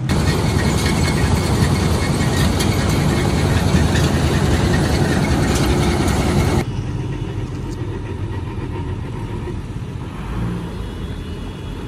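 Heavy diesel engine running loudly, then after an abrupt cut about two-thirds of the way through, a quieter diesel truck engine idling with a low rumble.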